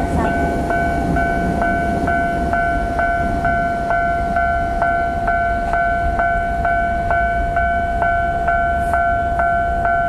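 Japanese railway level-crossing warning bell ringing steadily, an electronic kan-kan struck about twice a second, over a low steady rumble. It signals that the crossing is closed for approaching trains.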